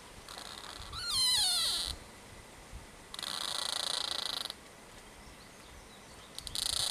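Trees creaking: a wavering creak that slides down in pitch about a second in, a steadier buzzing creak a couple of seconds later, and another starting near the end.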